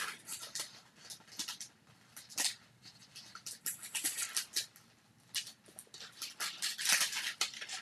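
Irregular light rustling and small plastic clicks of craft embellishments being rummaged through and picked out by hand, busiest near the end.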